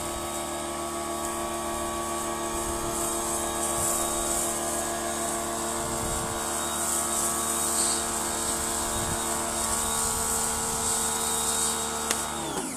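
Yard Force compact pressure washer running on a low detergent setting through its Vario nozzle: a steady motor-and-pump hum with a high hiss over it. Near the end its pitch drops quickly and it stops.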